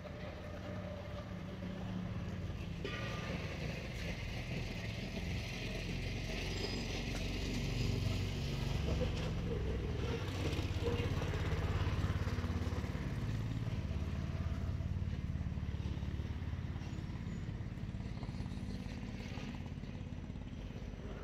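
Low rumble of passing motor traffic, swelling to its loudest about halfway through and then slowly fading.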